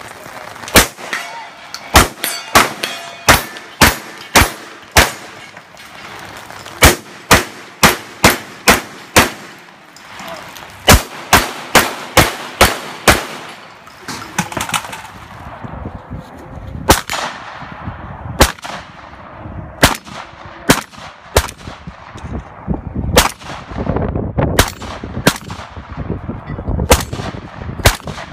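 Vepr 12 semi-automatic 12-gauge shotguns firing in fast strings at steel targets, the steel ringing after hits. The first half has quick runs of up to about three shots a second; from about halfway the shots come slower and more spaced out.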